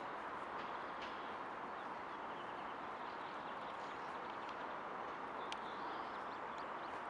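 Small birds chirping over a steady background hiss, with one sharp click about five and a half seconds in.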